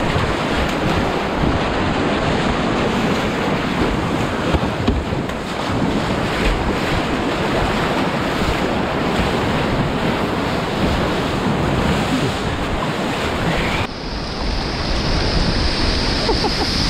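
Big-volume river rapids rushing and splashing over the bow of a kayak, heard close up from a camera on the boat, with wind buffeting the microphone. The rush is steady and loud, and its hiss changes character about fourteen seconds in.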